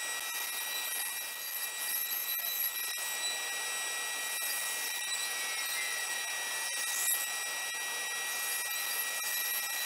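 Bandsaw running with a steady whine as its blade cuts curves in mirror plexiglass (acrylic) sheet.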